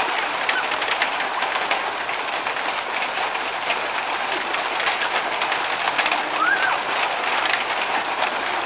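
Steady rain falling, an even hiss dotted with many small ticks of drops, and a single rising-and-falling bird call a little past the middle.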